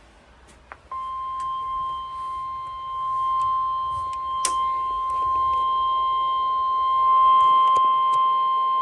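NOAA Weather Radio warning alarm tone: one steady, high-pitched 1050 Hz tone starting about a second in, announcing a National Weather Service flash flood warning. A sharp click sounds about halfway through.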